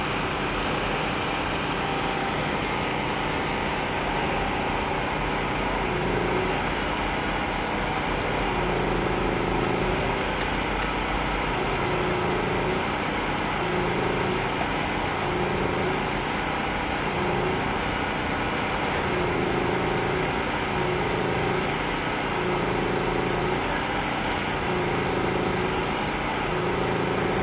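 Steady engine drone with a slow, uneven throb swelling about once every second or two, over a constant rushing noise.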